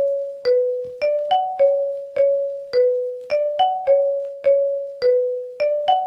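Ringtone melody of single struck notes in a mallet-like tone, about two notes a second. A short phrase climbs a few steps and comes back down, repeating about every three seconds.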